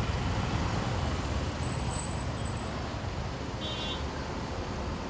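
Steady road traffic, with cars and auto-rickshaws passing close by and their engines running. The traffic grows louder for a moment about a second and a half in, and a brief high horn toot sounds about three-quarters of the way through.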